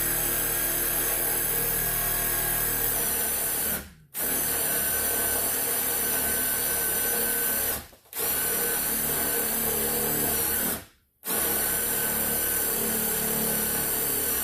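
Power drill spinning the cutting end of a Speed Out extractor bit into a stripped screw head, in four steady runs of about three to four seconds with short stops between. The bit is cutting hot enough that the screw is smoking.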